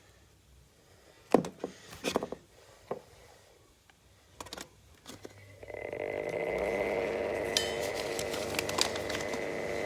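A few sharp clicks and knocks, then about halfway through a Mistral exhaust fan starts up. Its hum rises in pitch as it spins up, then settles into a steady running noise with a thin high whine and some rattling ticks, from the fan's bad bearing.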